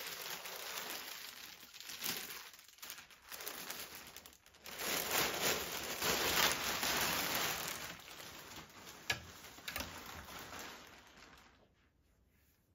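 Plastic garment bag crinkling and rustling as it is handled and pulled off a jacket on a hanger, rising and falling in uneven waves, with a sharp click about nine seconds in. The rustling dies away about a second before the end.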